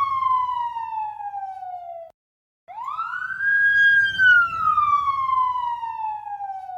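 Police siren sample run through Adobe Audition's Doppler Shifter, set to pass from right to left. The first pass's pitch slides steadily down and cuts off about two seconds in. After a short break a second pass plays: the pitch sweeps up, holds, then falls slowly as if the siren is going by.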